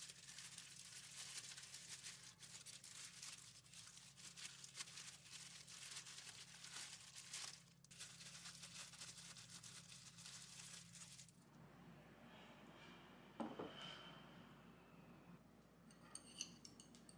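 Disposable plastic food-prep gloves crinkling and rustling as gloved hands fold leaves around rice balls, a dense crackle that stops suddenly about eleven seconds in. After it come one light clink and a few faint ticks near the end.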